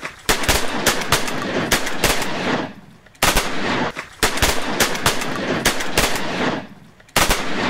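Several shotguns firing fast, overlapping shots at a flock of ducks. The shots come in three volleys with short pauses between them.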